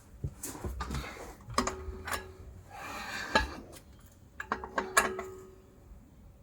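Irregular metallic clicks and clanks, a few of them ringing briefly, from work on the car's exhaust and its mounts.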